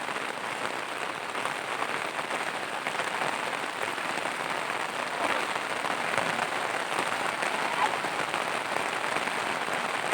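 Steady heavy rain falling, an even hiss of many drops.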